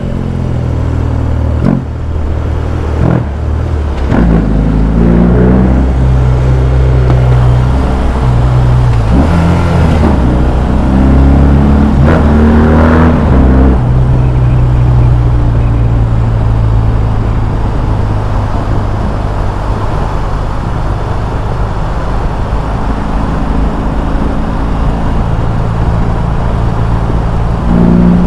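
BMW R18's big air/oil-cooled boxer twin engine heard from the moving motorcycle. Its pitch climbs in a few surges of acceleration in the first half, then it settles into a steady cruise.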